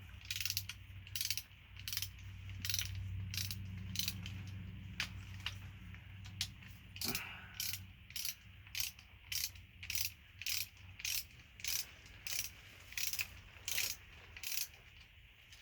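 Ratchet wrench clicking in short back-and-forth strokes while backing out the 10mm bolts of a timing chain guide on a Mazda 3.0 L V6. The strokes come irregularly at first, then settle into an even rhythm of about two a second.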